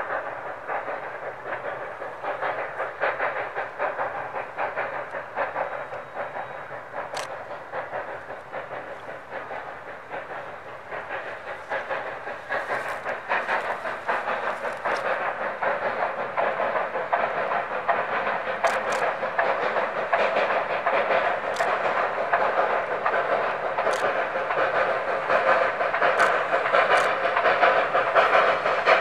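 Articulated 2-6-6-2 steam locomotive working hard under load, its rapid exhaust chuffing growing steadily louder as it approaches. A few brief sharp clicks sound over it.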